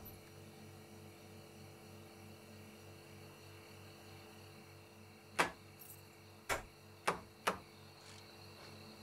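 Steady low electrical hum, with four sharp knocks or clicks spaced about a second and a half, then half a second apart, starting a little after five seconds in.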